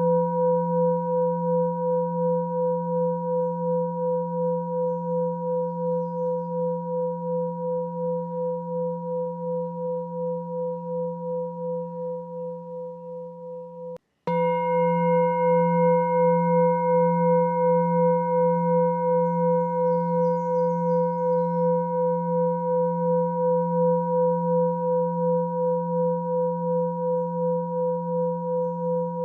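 Singing bowl tone ringing steadily, a low hum with higher overtones and a slow pulsing wobble. About halfway through it fades, cuts out for a moment, then comes straight back at full level with a click.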